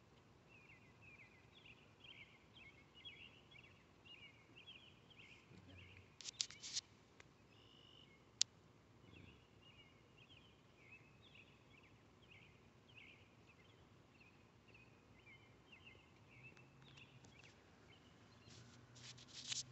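Faint birds chirping, short repeated chirps several a second, with a few sharp clicks: a cluster about six seconds in, one at about eight seconds, and another cluster near the end.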